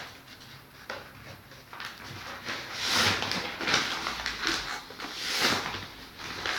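A sheet of paper rustling as it is pressed onto and rubbed over wet spray paint on a board to texture it, swelling twice, about three and five and a half seconds in.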